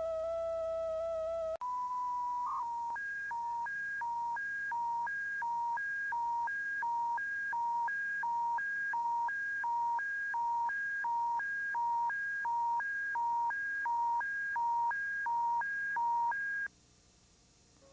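Electronic emergency alert attention tone. A steady tone stops about a second and a half in, a single higher beep follows, and then a high and a low tone alternate, each lasting about a third of a second. The tones cut off suddenly about a second before the end.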